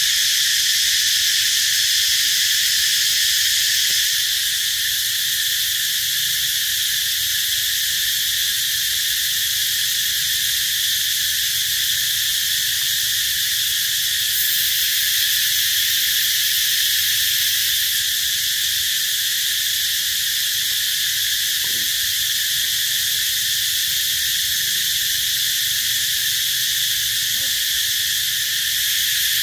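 Loud, steady chorus of insects buzzing in several high pitch bands at once. One band fades a few seconds in, and a very high one joins for a few seconds midway.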